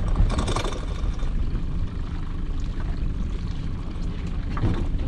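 Water pouring and splashing off a lobster pot as it is hauled up beside a small fishing boat, over a steady low rumble of the boat's engine.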